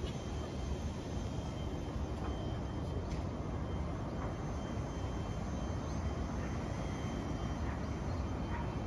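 Steady low rumble of distant city traffic, with a faint thin high tone running through it.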